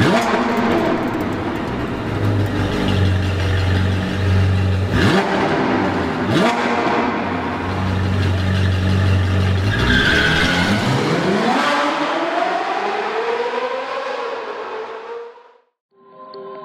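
Sports-car engine sound effect, revving in sharp rising bursts. About two-thirds of the way in, it pulls away in one long rising pitch that fades out. Music starts just at the very end.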